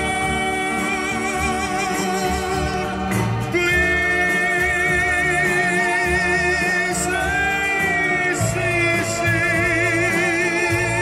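A recorded pop ballad played back through a hi-fi system: long held notes with vibrato over a shifting bass line.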